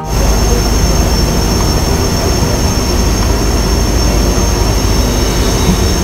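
Loud steady rush of wind buffeting the phone microphone on a moving RoRo ferry's open deck, over the deep drone of the ship's engines with a steady high whine.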